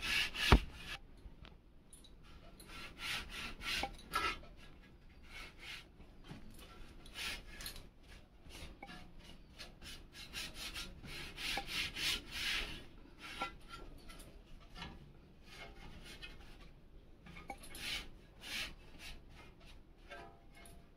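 Dry cloth wiping dust off ceiling fan blades: repeated, irregular rubbing strokes, with one sharp knock about half a second in.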